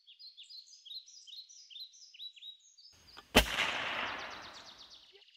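Small birds chirping in quick repeated downward notes, then a single loud gunshot a little over three seconds in, its echo dying away over about a second and a half while a bird trills on.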